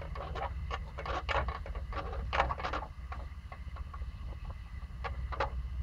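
Pomsky puppy gnawing and mouthing a rubber ball: a run of irregular short clicks and scrapes, a few louder ones, over a steady low rumble.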